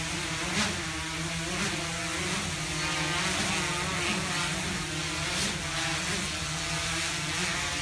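Quadcopter's electric motors and propellers buzzing steadily as it hovers, the pitch wavering up and down about once a second as its autonomous controller varies rotor speed to hold position.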